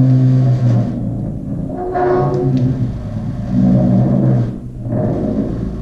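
Lion's roar friction drum: a big bass drum whose head has a string attached in the middle, the string rubbed in repeated strokes. Each stroke gives a low, pitched growl about a second long, about four in all.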